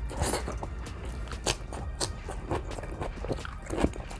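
Close-up chewing and wet mouth clicks of a person eating soft rice and stewed vegetables by hand, irregular smacks several times a second.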